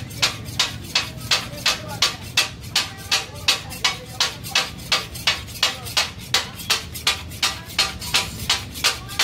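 Metal blade chopping diced heart meat on a flat iron griddle, in the steady rhythmic clatter that gives taka-tak its name. It strikes about three times a second, evenly, throughout.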